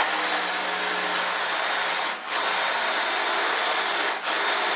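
Drill with a 3/4-inch concrete bit boring into a concrete wall, starting the hole straight on. It runs steadily with a high whine, easing off briefly twice, about two seconds in and about four seconds in.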